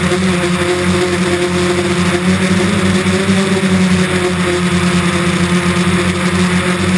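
DJI Phantom quadcopter's motors and propellers hovering with a steady, loud buzz, over a constant rushing noise.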